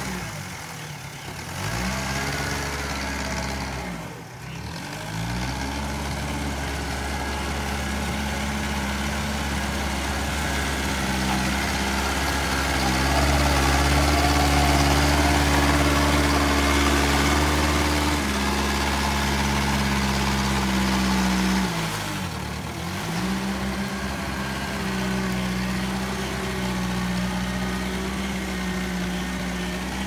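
JCB backhoe loader's diesel engine working under load while the front loader bucket pushes and lifts brush and soil. It runs higher and louder for about five seconds midway, and its note sags and recovers three times.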